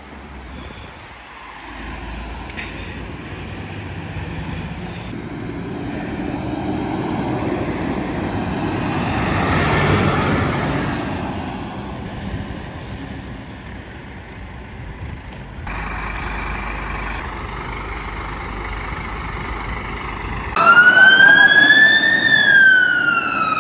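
Fire engine driving past, its engine and tyre noise swelling to a peak and fading as it goes by, then a steadier engine hum. Near the end, a loud electronic tone sweeps up and then down in pitch.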